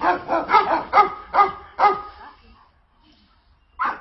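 A dog barking: a quick run of about seven short barks in the first two seconds, a pause, then barking starts again near the end.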